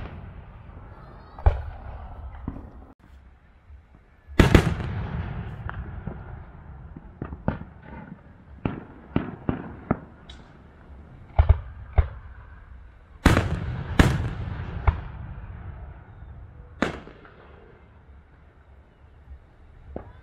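Fireworks going off: a run of sharp bangs and cracks, the loudest about four seconds in and two more close together around thirteen to fourteen seconds, each dying away in a rumbling echo.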